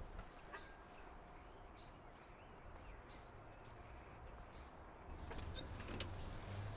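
Faint outdoor ambience: a low steady rumble with a few faint, brief bird chirps.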